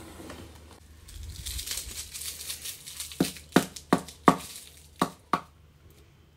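Cling film crinkling as a frozen, plastic-wrapped Korean corn dog is handled and unwrapped, then a quick run of about seven sharp knocks over about two seconds.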